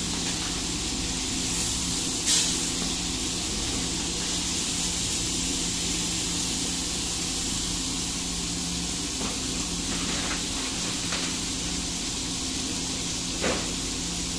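Longganiza sausages sizzling in oil on a flat-top griddle: a steady hiss with a few sharp clicks, the loudest about two seconds in.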